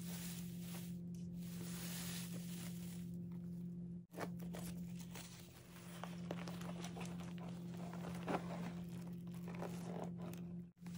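Hands rustling and crinkling through shredded-paper packing filler in a cardboard box, then the soft rustle of a canvas tote bag being pulled out and unfolded. A steady low hum runs underneath.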